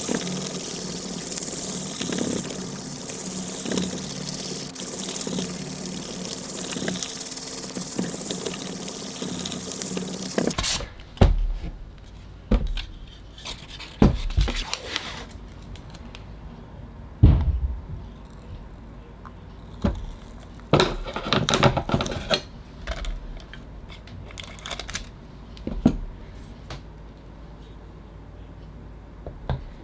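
Hand wet-sanding of a cast epoxy-resin block with waterproof sandpaper: a loud, steady, scratchy hiss with wet water sounds that stops abruptly about a third of the way in. After that, scattered knocks and thumps as the heavy resin block is handled and set down.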